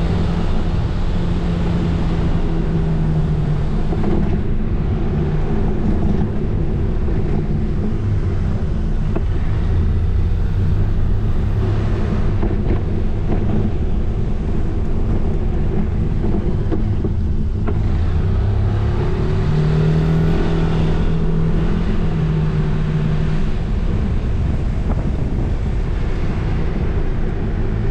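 Motorcycle engine running at road speed, its note shifting a few times, with wind rushing over the microphone.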